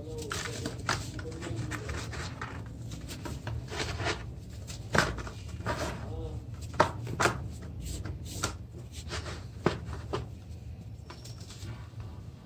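Hands crumbling and squeezing cakes of red sand water paste in a plastic basin: an irregular run of crunches and crackles, some sharper and louder than others, over a steady low hum.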